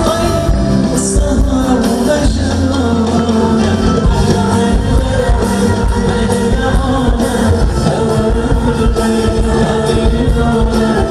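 Live Arabic pop song from a concert stage: a male singer with band accompaniment, played loudly and steadily.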